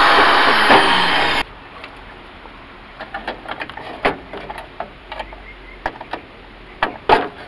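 Cordless drill running as it bores out a hole in a steel air cleaner housing, stopping suddenly about a second and a half in. After that come scattered light clicks and knocks of the housing and tools being handled.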